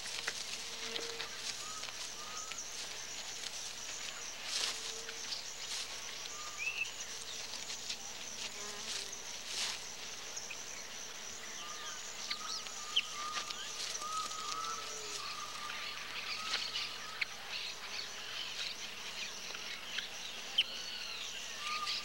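A steady, high-pitched insect chorus, with scattered short chirps and a few sharp clicks.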